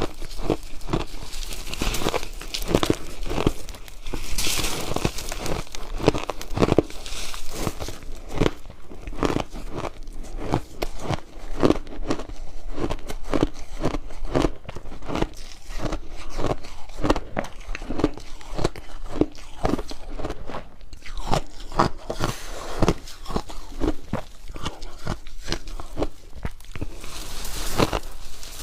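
Close-miked crunching of ice being bitten and chewed: rapid, irregular cracks and crunches, repeated without pause.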